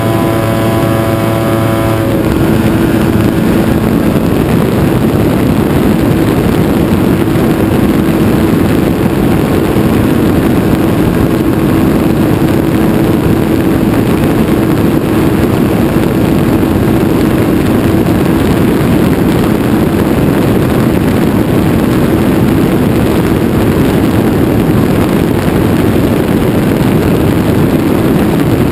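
Light aircraft's engine droning steadily in flight, heavily buried under wind rush on an outside-mounted microphone. The engine's tone stands out more clearly for the first couple of seconds, then wind noise takes over.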